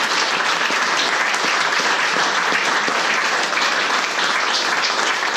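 Audience applauding steadily at the end of a song: a dense patter of many hands clapping.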